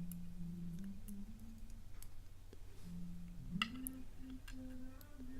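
A low voice quietly humming a tune in held notes that step up and down in pitch, with a few faint clicks from lock picks in a padlock and a steady electrical hum underneath.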